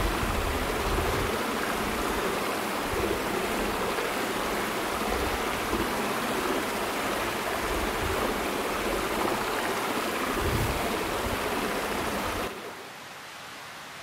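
Creek water flowing steadily. Near the end it cuts off abruptly, leaving a much quieter, even hiss.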